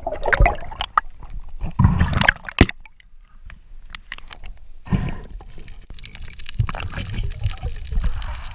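Water noise picked up by an underwater camera: irregular gurgling and sloshing with a few sharp clicks in the first seconds. It goes quieter for a moment in the middle, then comes back as a low rumble.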